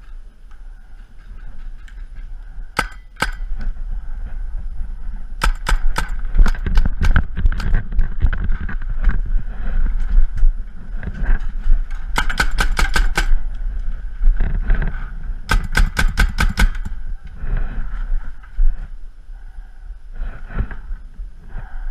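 Paintball markers firing: two shots about three seconds in, then strings of rapid shots around six, twelve and sixteen seconds in, over a low rumble.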